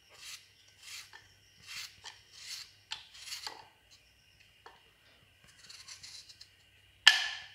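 Kitchen knife slicing through raw peeled potatoes held in the hand: a short rasping stroke about every three-quarters of a second, then sparser cuts. Near the end comes one sudden sharp knock, the loudest sound.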